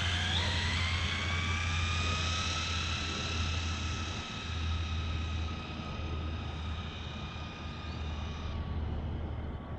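Arrma Granite RC truck's stock BLX 3200 kV brushless motor and gears whining at full throttle on 6S in a top-speed pass. The whine rises fast in pitch for the first second or so, then holds high and steady as the truck runs out at speed, and cuts off near the end as the throttle is released.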